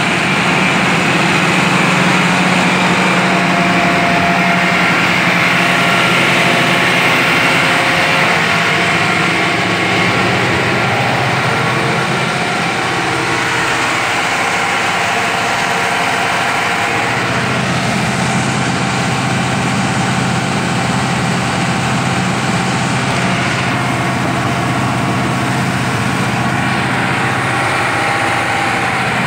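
Large John Deere tractor's diesel engine running steadily, its note dropping about halfway through.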